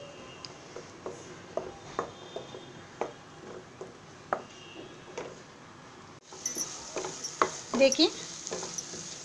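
Ground onion, tomato and coconut masala paste sizzling as it fries in oil in a nonstick kadai, with a spatula scraping and tapping the pan as it is stirred. The scrapes get louder about six seconds in. The paste is being fried until the oil separates.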